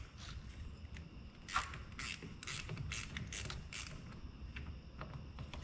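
Hand ratchet clicking in a series of short strokes, about six clicks roughly half a second apart, as a car battery cable terminal is loosened.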